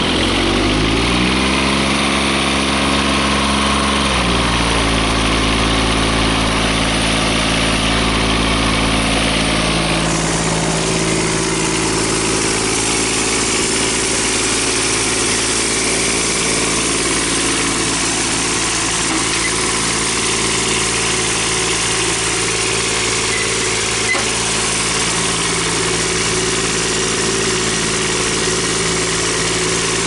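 Riding mower's small diesel engine catching after cranking and coming up to speed. Its pitch rises over the first few seconds, steps up again about four seconds in, then holds steady as it runs: it starts on its new battery cables after the glow plugs were warmed.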